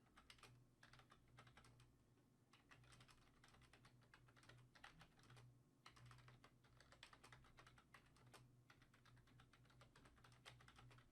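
Faint computer keyboard typing: irregular quick key clicks over a low steady hum.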